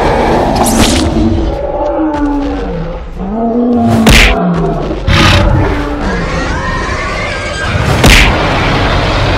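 Cartoon monster roaring and growling, broken by three heavy punch impacts about four, five and eight seconds in, over background music.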